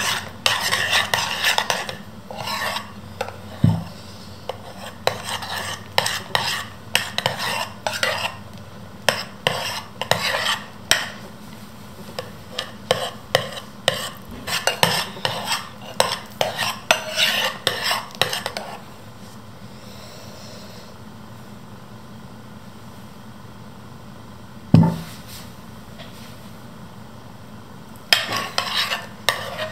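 Metal spoon stirring and scraping a thick foamy slime mix of glue and shaving cream in a bowl, with quick clinks of the spoon against the bowl. The stirring stops for several seconds in the latter part, broken by one dull knock, then starts again near the end.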